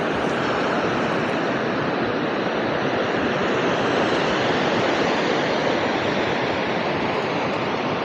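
Waterfall rushing: a steady, unbroken roar of falling water.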